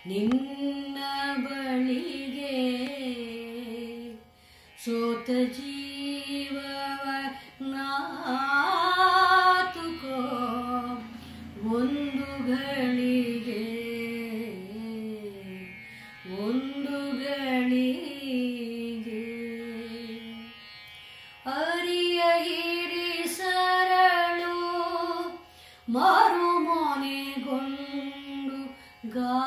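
A woman singing a Kannada song solo, with no accompaniment. She sings long, held phrases that bend in pitch, with short breaks for breath between them.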